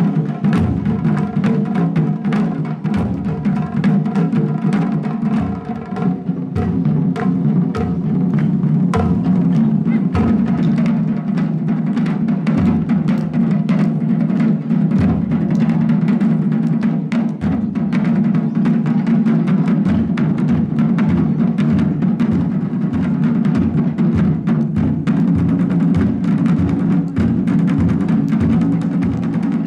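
Japanese taiko ensemble drumming: rope-laced slung drums and large barrel-bodied taiko struck with wooden bachi in a fast, driving rhythm, with regular low beats under dense rapid strokes.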